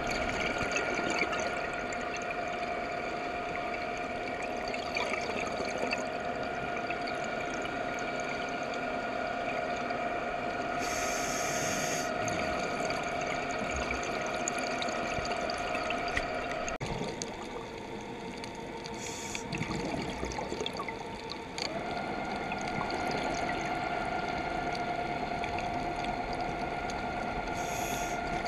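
Electric underwater scooter's motor whining steadily, heard underwater as a steady multi-note whine that changes for a few seconds just past the middle and then comes back. Short hissing bursts of scuba exhaust bubbles come a few times.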